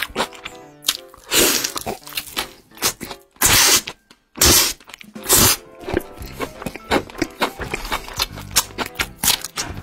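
Close-miked eating: meat bitten and torn from a roasted poultry leg and chewed, with many wet clicks and four or five loud wet smacking bursts in the first half or so. Background music with steady notes runs underneath.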